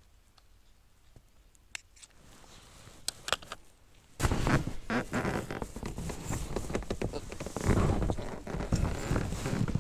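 A few faint clicks, then about four seconds in, sudden loud close rustling and crunching with many sharp clicks: footsteps through grass, heard close to the microphone.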